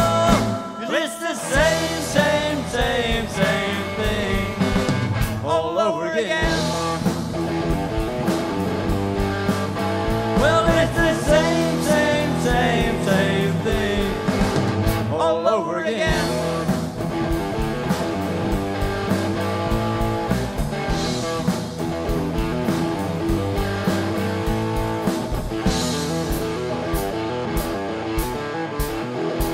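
Live blues-rock band playing an instrumental section: electric guitar lead with bent notes over a steady drum beat.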